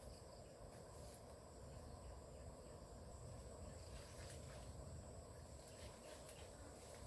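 Near silence: faint outdoor ambience with a steady, high insect drone and a few faint ticks.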